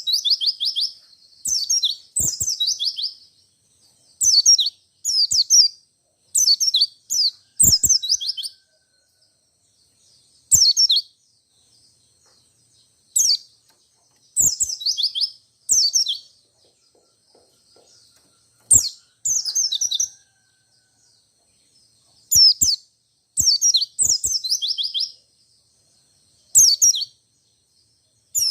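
Pleci (Zosterops white-eye) song in short, high-pitched bursts of rapid chirps and falling trills, coming every one to three seconds with quiet gaps between.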